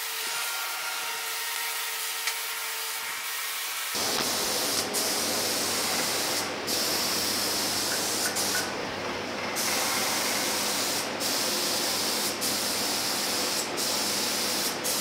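Gravity-feed HVLP spray gun running on compressed air, hissing as it lays etching primer onto sheet-metal running boards. About four seconds in the hiss becomes louder and fuller, then it cuts out briefly several times between passes.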